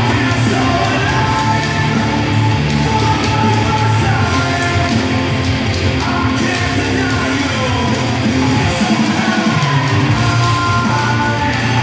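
Loud rock music with a singing voice over a steady beat.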